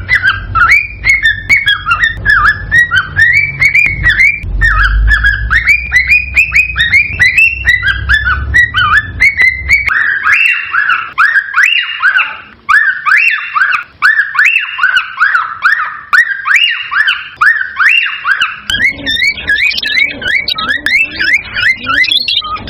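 Cockatiel whistling: a fast, unbroken run of short chirping notes that sweep up and down, several a second. A low rumble lies under the first half.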